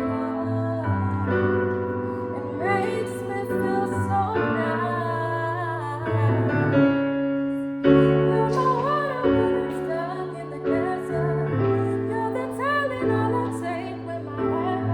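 Music: a woman singing over sustained keyboard chords.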